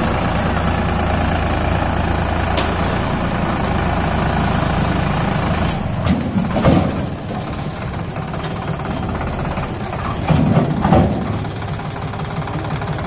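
Sonalika DI 47 RX tractor's diesel engine running at idle. The deepest part of the rumble drops away about six seconds in, and two brief louder swells come about six and ten seconds in.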